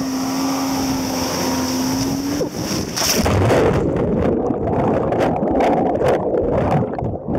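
Towing motorboat's engine drone with wind buffeting the microphone, rising slightly in pitch before it drops away about two and a half seconds in. About three seconds in comes a splash, then churning, gurgling water as the banana boat is flipped and its riders go into the sea.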